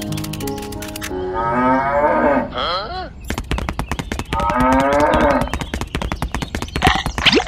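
A cow mooing twice, two drawn-out calls, with a fast run of sharp clicks behind it, heaviest in the second half.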